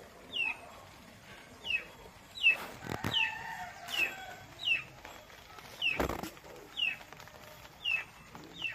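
A chick peeping over and over: short, high calls that slide downward in pitch, about one a second. Two soft knocks sound about three and six seconds in.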